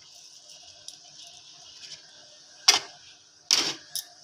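Kitchen utensils clinking and knocking against a stainless steel bowl: three sharp metallic knocks in the second half, the middle one longer, over a steady faint high hiss.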